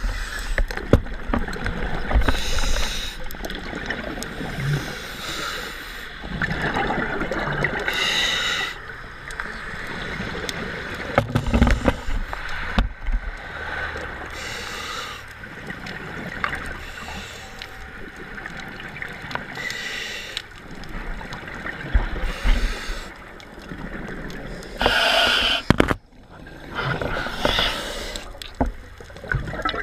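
Scuba diver breathing through a regulator underwater: a hissing breath every few seconds, with gurgling, rumbling bubbles in between.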